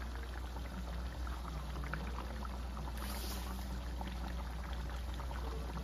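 Pork igado stew simmering in a wok on a gas burner: a steady bubbling with many small pops, over a low steady hum.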